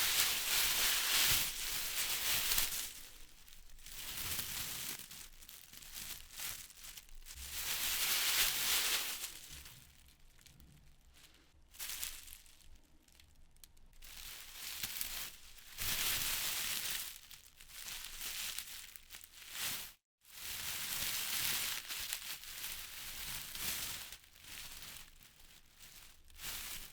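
Wind gusting through trees, the leaves rustling in surges that build and die away every few seconds, with a brief break to silence about twenty seconds in.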